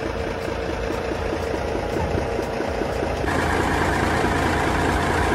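Dumper truck's diesel engine idling with an even, fast beat, started for the first time in many days. About three seconds in it gets louder and harsher.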